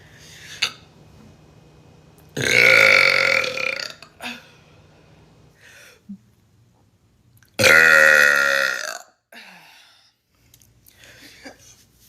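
A person burping: two long, loud burps about five seconds apart, the second dropping in pitch as it ends.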